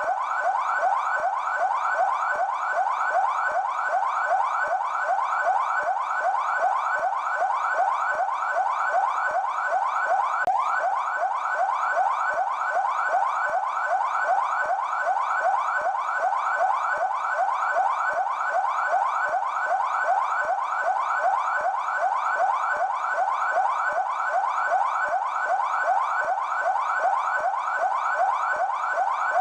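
Police car electronic siren in yelp mode, the siren used by São Paulo's Military Police (PMESP). It gives a fast, steady up-and-down wail that repeats several times a second without a break.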